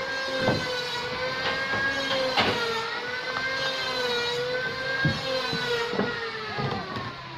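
Log bandsaw mill running: a steady high whine that wavers slightly in pitch, with a few sharp knocks.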